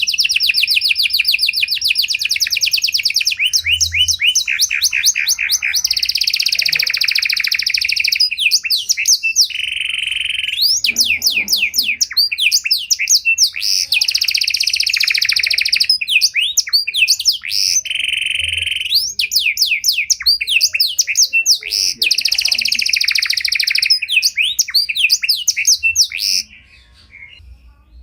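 Panda canary singing a long, continuous song: quick trills of rapidly repeated notes, changing from phrase to phrase every second or two, with a few short buzzy rolls between them. The song breaks off about a second and a half before the end.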